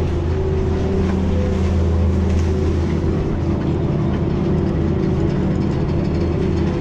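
Chairlift running: a steady, loud low hum with a rumble from the lift's machinery and haul cable.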